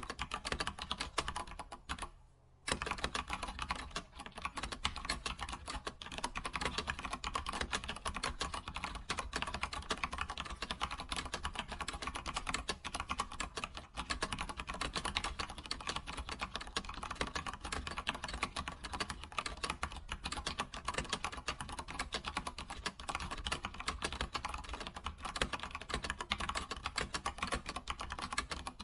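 Fast, continuous typing on a computer keyboard, a dense run of key clicks with a brief pause about two seconds in.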